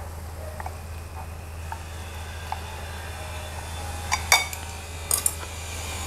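Chopsticks clicking against a ceramic plate as pieces of pan-fried chicken are arranged: a few light taps, then two sharper clinks about four and five seconds in, over a low steady hum.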